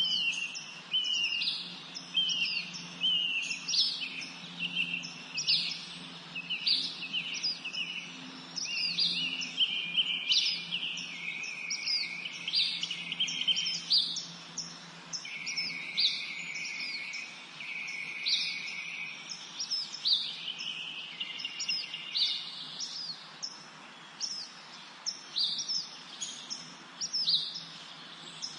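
Songbirds chirping and singing together, a dense, unbroken run of short high calls and trills overlapping one another.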